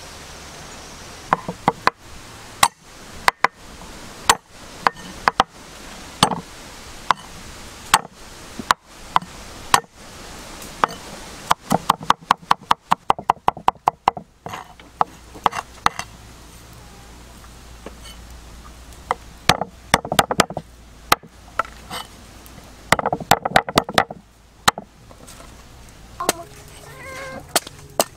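Knife chopping in irregular strokes, with a fast run of rapid chops partway through.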